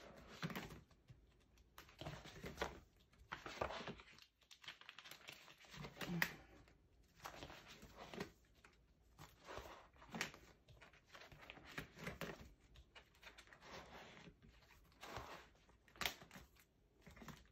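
Faint rustling and flapping of plastic binder sleeves as the pages of a photocard binder are turned one after another, in short bursts about once a second.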